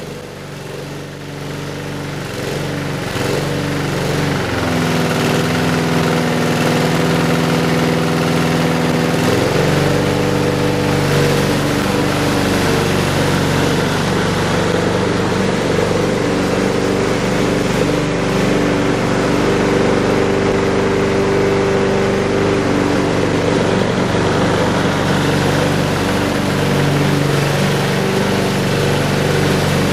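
Brill Hattrick lawn mower's Briggs & Stratton Quantum single-cylinder four-stroke engine running steadily just after starting, building up over the first few seconds, while the mower is pushed across the lawn. The engine note shifts about ten seconds in.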